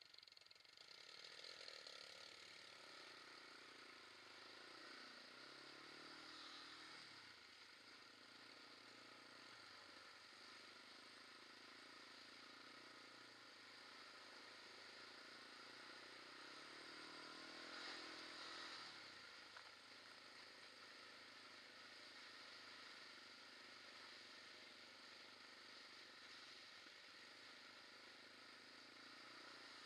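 Quad bike engine running along, heard faintly, its revs rising and falling twice: about five seconds in and again around eighteen seconds.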